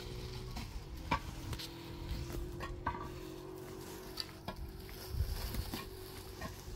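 Scattered light clicks and knocks of kitchenware being handled, over a steady low hum.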